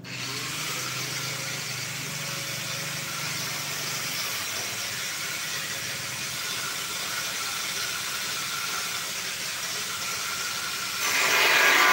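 A grinder on the steel drum makes a steady hissing grind that starts abruptly. About eleven seconds in it gets suddenly louder and harsher as it bites harder into the metal.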